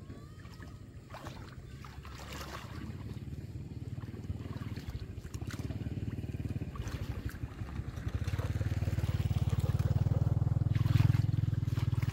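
A small engine running steadily, growing louder about eight seconds in, over occasional splashing of water as someone wades through shallow paddy water.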